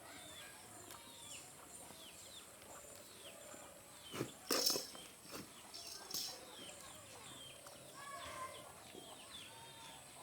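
Farmyard ambience: small birds chirping over and over in short, high, falling chirps, with a few sharp knocks a little before halfway and a short animal call a little after three-quarters of the way through.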